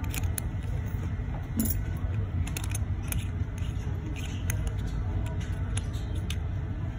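Irregular light metallic clicks and taps from a steel watch case and its strap buckle being handled and turned over, over a steady low hum.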